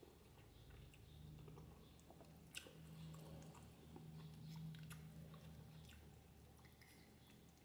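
Faint chewing of spaghetti with sausage, with small wet mouth clicks scattered through, over a faint low hum that stops about six seconds in.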